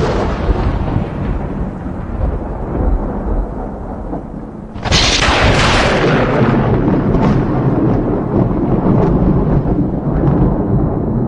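Thunder: a long rolling rumble slowly fading, then a sudden sharp crack about five seconds in that breaks into a long rolling rumble, with smaller crackles in it.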